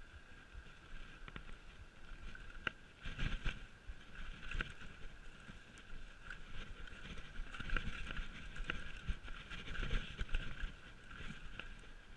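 Mountain bike descending a rough forest trail: tyres running over dirt, roots and rock, with frequent knocks and clatter from the bike under a steady high hum. The heaviest clatter comes about three seconds in and again near ten seconds.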